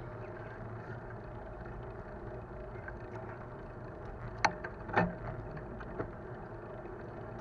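Bicycle rolling along a paved path: a steady hum of riding noise, with three sharp clicks or knocks around the middle.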